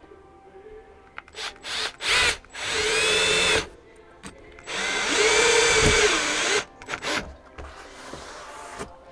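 Milwaukee cordless drill/driver run in two long bursts, its motor pitch rising and then falling in each, with a few short trigger blips before and after, driving screws into a truck cab's interior panel.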